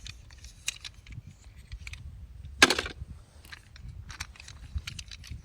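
Scattered small clicks and rustles, with one sharp, loud knock a little past halfway.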